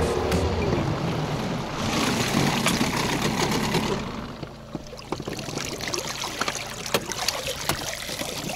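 Water washing and splashing along an inflatable boat's hull as it comes in to the bank. From about four seconds in it gives way to quieter trickling and dripping with scattered light knocks, as the outboard motor's lower unit is tilted up out of the water and drains.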